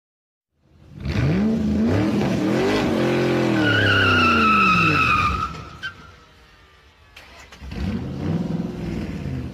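Sports car engine revving up and down, with a high tire squeal about three and a half seconds in that lasts about two seconds. The sound dies away about six seconds in, and another engine rev builds near the end.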